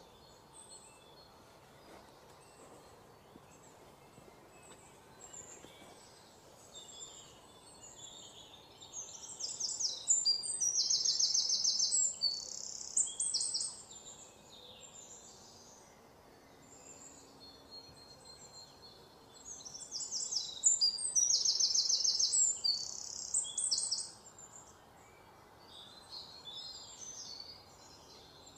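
Birds calling in rapid, high trills, loudest in two bouts of a few seconds each, one about a third of the way in and one about three-quarters of the way in, over a faint steady outdoor background.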